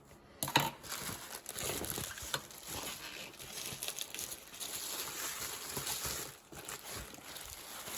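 Bubble wrap and plastic packaging crinkling and rustling as a parcel is unwrapped by hand, starting with a sharp crackle about half a second in.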